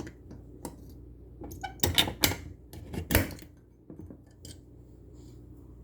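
A few sharp clicks and knocks with some light metallic rattling, clustered about two seconds in and again about three seconds in. It sounds like small hard objects being handled.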